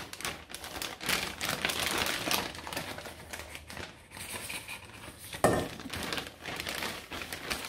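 Plastic freezer bag crinkling and rustling as it is handled with raw pork belly inside, in a dense run of small crackles and rustles, with a short louder sound about five and a half seconds in.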